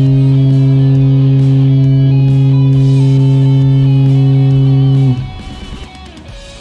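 Ferry horn sounding one long, steady, low blast that cuts off about five seconds in, over guitar music.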